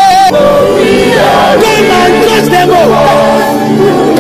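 A crowd of voices crying out together in worship, many overlapping pitches rising and falling, over steady sustained music. A single held sung note breaks off just after the start.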